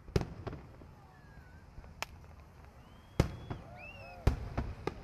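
Aerial fireworks shells bursting overhead: a string of about eight sharp booms, the loudest near the start, just after three seconds and just after four seconds. Faint high gliding tones sound between the booms.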